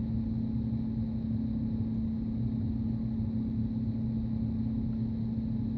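Steady low background hum of room noise, a constant drone that doesn't change.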